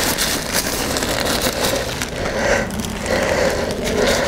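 Rustling and crinkling of the tent's thin nylon rain-fly fabric as the vestibule door is rolled up by hand, a continuous crackly rustle.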